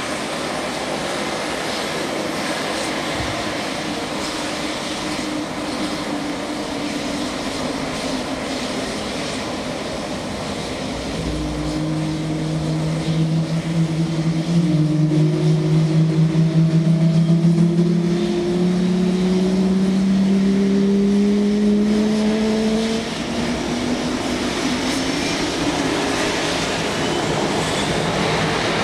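Boeing F/A-18 Hornet jets' General Electric F404 turbofan engines starting and running on the ramp: a steady jet roar, joined about eleven seconds in by a low hum that slowly rises in pitch as the engines spool up, throbbing for a few seconds in the middle.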